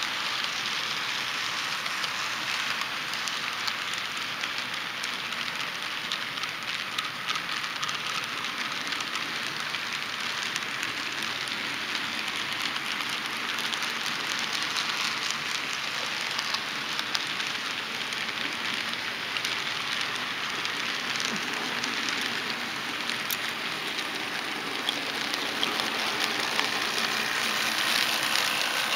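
Model railroad coal train of hopper cars and a caboose rolling past on the track: a steady rattling hiss of wheels on rail, full of fine clicks, growing louder near the end as the steam locomotive comes by.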